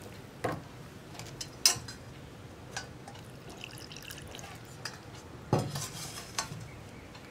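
Metal spoon stirring and scraping wheat flour and jaggery syrup into a batter in a stainless-steel bowl, with scattered clinks of spoon against steel, the loudest about five and a half seconds in. Midway there is a faint trickle of jaggery syrup being poured through a mesh strainer into the bowl.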